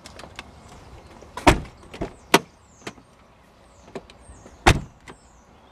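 Car doors being handled and shut: a series of separate sharp knocks and clunks, the loudest about a second and a half in and a door slam near the end.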